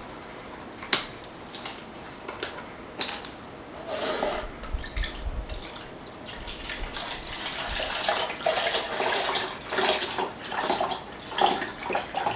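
Chicken broth being poured into a measuring cup, the liquid splashing and gurgling, busiest in the second half, with a sharp clink about a second in.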